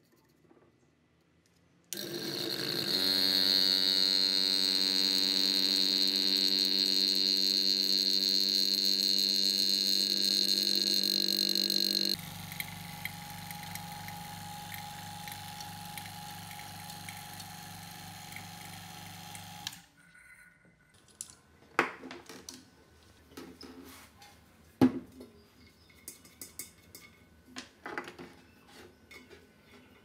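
Portable refrigeration vacuum pump starting about two seconds in and running steadily while it evacuates the refrigerator's sealed system through the manifold gauge hoses. It drops sharply in level about ten seconds later, runs on more quietly, and stops near twenty seconds. After that, scattered clicks and knocks of hose fittings and valves being handled.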